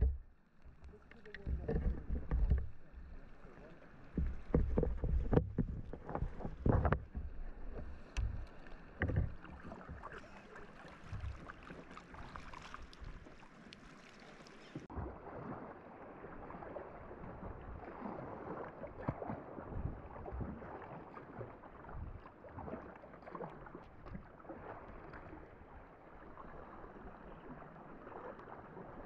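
Sea kayak paddling: water splashing and lapping around the hull and paddle blades in a steady, uneven patter. A few loud low thumps come in the first several seconds, and the sound changes abruptly about halfway through.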